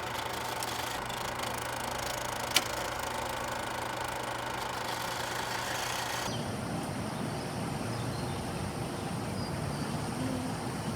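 Steady background noise with a low hum, changing character about six seconds in, with one sharp click a little after two and a half seconds in.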